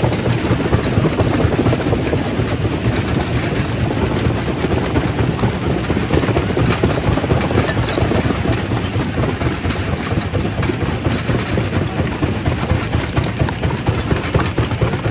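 Quarry primary rock crusher running steadily, a loud continuous mechanical din with a dense rattling, grinding texture as stone is broken.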